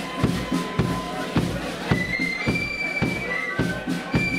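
Flute band playing a march: many flutes in unison carry a high, held melody over a steady bass drum beat.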